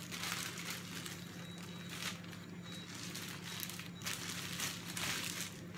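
Thin clear plastic bag crinkling and rustling in several bouts as it is pulled and pressed down over a head.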